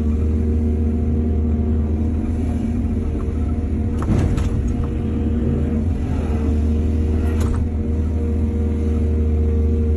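Excavator's diesel engine running steadily under load, with a burst of clatter about four seconds in and a shorter one about three seconds later.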